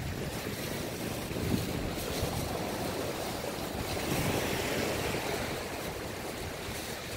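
Sea waves washing against a rocky shore, with wind buffeting the microphone; the wash swells about four seconds in.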